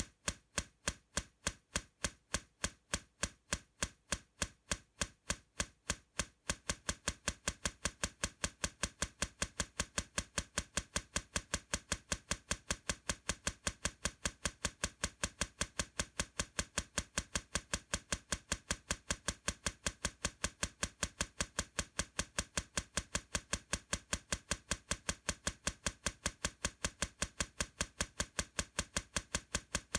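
Steady ticking clicks, about two and a half a second, quickening to about four a second over a louder background hiss about six seconds in.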